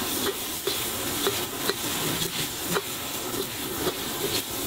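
Rice noodles sizzling in a hot wok as they are stir-fried and tossed with chopsticks: a steady frying hiss with about half a dozen sharp clicks of the chopsticks knocking against the wok.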